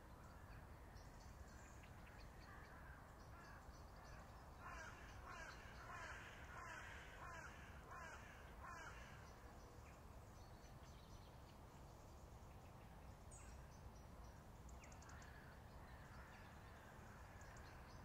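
A crow cawing about seven times in a quick, even series, starting about four seconds in, over a faint steady outdoor background.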